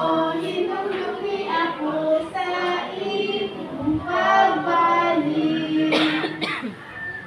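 A group of young children singing a song together. The singing stops about six and a half seconds in, with two short sharp sounds just before it ends.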